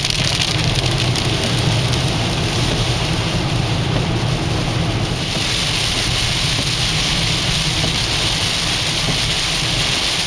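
Heavy rain falling on a moving car, heard from inside the cabin as a steady hiss over a continuous low rumble of road and engine.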